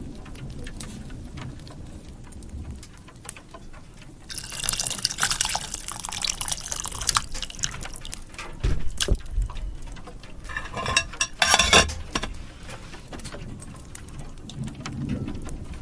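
Water being poured into a container twice, a longer pour of about three and a half seconds and then a shorter one of about a second, with a couple of low knocks between them.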